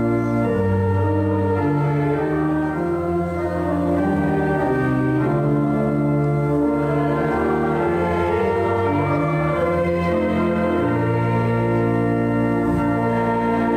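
Church organ playing held chords that change about once a second, over a moving bass line.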